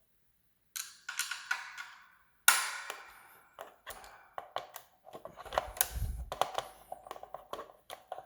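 Hand tools clicking and clanking against the metal fan-cage fasteners and frame of a Schwinn Airdyne exercise bike as its attachment bolts are loosened. A sharp metal strike about two and a half seconds in rings briefly, followed by quick, irregular clicks and rattles and a dull thud.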